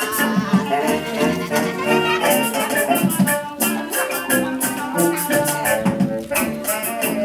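Live band music: melody instruments playing over a steady shaker rhythm.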